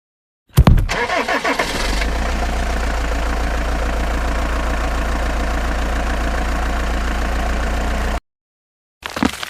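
An engine cranking and catching about half a second in, then idling steadily with a deep, even drone. It cuts off abruptly near the end, and a brief burst of noise follows.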